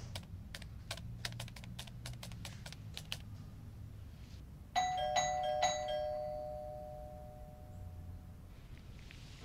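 Typing on a laptop keyboard in short runs of clicks, then about five seconds in a doorbell chime rings: two notes struck about three times in quick succession, ringing out and fading over a couple of seconds.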